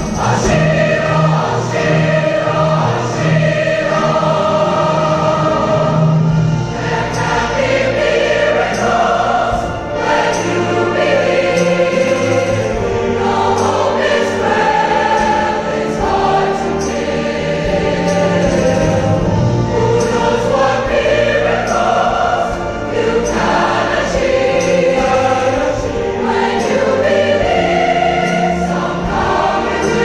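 Large combined choir singing with orchestra and wind ensemble accompanying.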